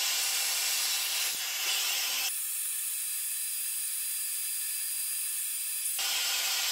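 A steady hiss with no clear rise and fall of a saw cut. Its lower part drops away suddenly about two seconds in and returns near the end.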